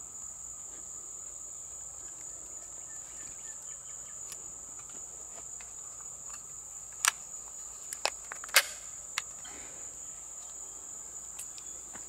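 A steady, high-pitched chorus of insects. From about seven to nine seconds in come a few sharp clicks of brass .223 cartridges being handled and pressed into a rifle magazine.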